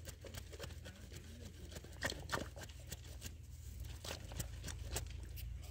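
Hands squelching and scraping in wet mud at the edge of a waterlogged hole, with irregular small wet clicks and a few louder smacks about two seconds in, over a steady low rumble.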